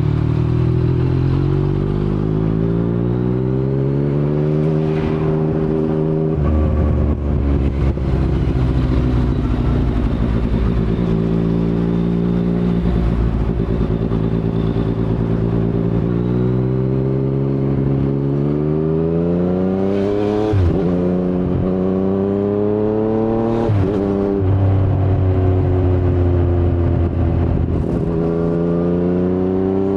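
2019 Yamaha MT-09's inline three-cylinder engine through an unbaffled Akrapovic carbon full-system exhaust (no dB killer), accelerating through the gears. The pitch climbs in several pulls, each cut off by a sudden drop at an upshift, with steadier stretches at lower revs between.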